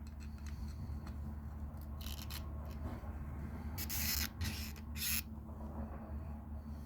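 Several short scraping sounds of tools working on a brass valve, between about two and five seconds in, over a steady low hum.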